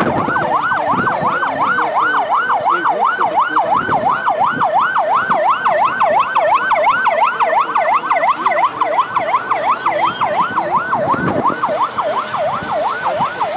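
Electronic siren of a convoy escort vehicle sounding a fast yelp, its pitch rising and falling about four times a second without a break, as the vehicle passes.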